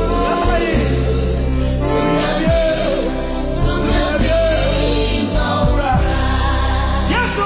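Ghanaian gospel song: a lead voice with a backing choir over a band with guitars, a heavy steady bass and drums keeping an even beat.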